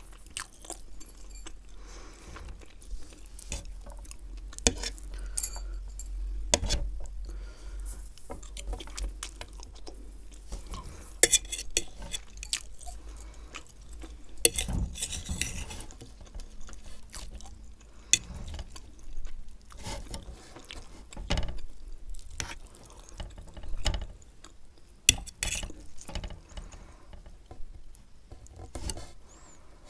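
Close-miked eating sounds: a metal fork stirring and scraping through Maggi instant noodles and a fried egg on a plate, with scattered sharp clicks and taps of the fork, and chewing between mouthfuls.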